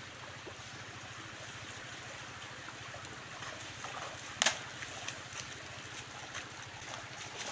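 Shallow water running steadily over a concrete spillway apron, with one sharp splash about four and a half seconds in as a wading man strikes at the water, then a few lighter splashes of wading feet.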